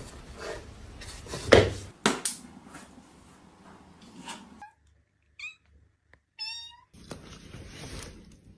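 Two thumps about a second and a half and two seconds in, then a domestic cat meowing: a short high meow past the middle and a longer, rising meow a second later.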